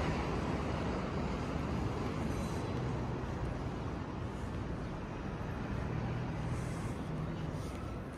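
Steady low rumble of urban background noise, with a faint low hum coming and going.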